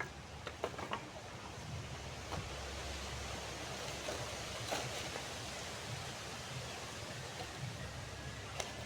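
Campfire burning: a steady rushing noise with a few sharp crackles and pops scattered through it.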